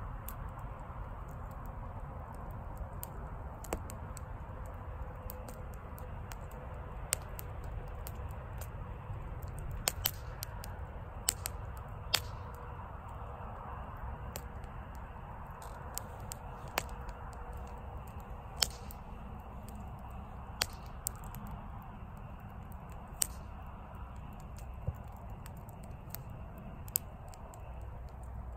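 Wood campfire burning, with a steady low rush of flame and irregular sharp pops and crackles from the wood, about a dozen louder snaps scattered through it.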